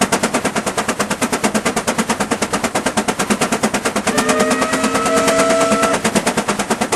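Greyhound steam traction engine working hard under load on a prony brake, its stack exhaust beating in rapid, even chuffs. A steam whistle sounds over the beats for about two seconds, starting about four seconds in.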